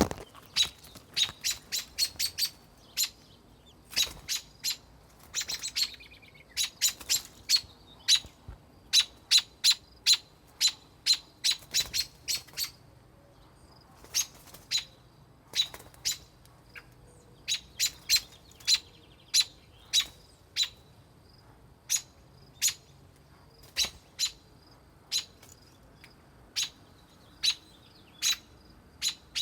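American robin's sharp alarm calls: short, loud chip notes repeated at an uneven pace, sometimes several a second, sometimes with pauses of a second or two. This is an adult robin agitated by a person close to its nest.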